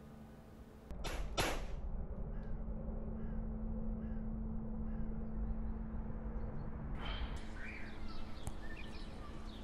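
Two gunshots about half a second apart. They are followed by a quieter outdoor background with faint, repeated chirps.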